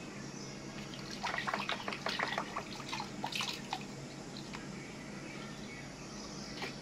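Water splashing and dripping in a plastic washtub as small hands slap and paddle in it: a quick run of splashes from about a second in until nearly four seconds, then only the odd drip.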